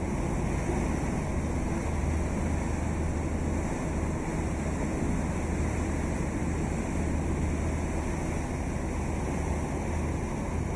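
Boat engine running steadily as a low rumble, with water and wind noise from on board.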